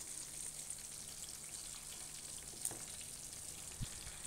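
Faint steady hiss of background noise with a low hum underneath, and a couple of small clicks near the end.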